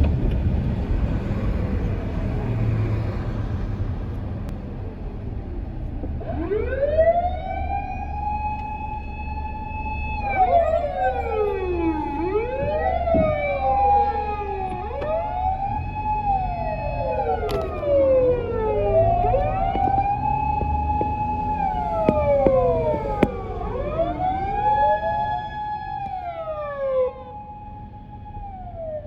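Fire engine siren wailing, starting about six seconds in over a low traffic rumble. Each cycle rises, holds a steady tone for a couple of seconds, then falls, over and over, with two wails overlapping out of step.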